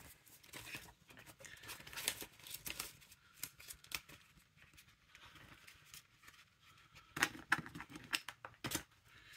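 Banknotes and the binder's plastic cash pockets rustling and crinkling as money is handled and tucked into a budget binder and its pages are turned, with a few sharper clicks and taps near the end.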